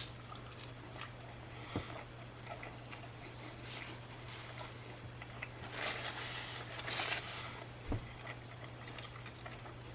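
Faint, wet chewing of a bacon burger, with scattered mouth clicks and smacks, busiest about six seconds in, over a low steady hum.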